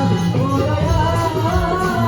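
Devotional Marathi folk music, a Ganesh vandana: a sung or played melody over a steady drum beat with jingling percussion.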